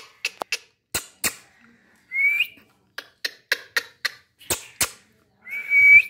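Indian ringneck parakeet in a wire cage giving two short, slightly rising whistles, about two seconds in and near the end, the second louder. Scattered sharp clicks and taps come between them.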